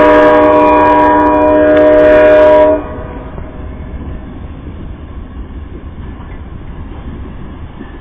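An Amtrak passenger train's air horn sounds one long, steady multi-note blast that cuts off sharply about three seconds in. After that, the low rumble of the train rolling away on the rails.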